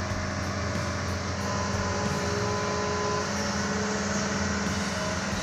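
Amphibious excavator's diesel engine running steadily with an even, low hum.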